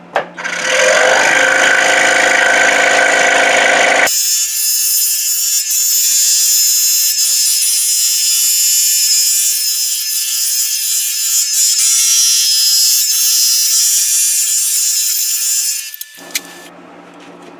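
Scroll saw running with a number 7 Pegas modified-geometry blade cutting the outline of a 1-inch hard maple base. The sound changes abruptly about four seconds in, turning thinner and higher, and stops suddenly near the end.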